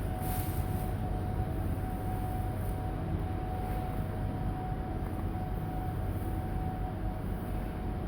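Steady machine hum: a low rumble under one constant mid-pitched tone, running evenly without change.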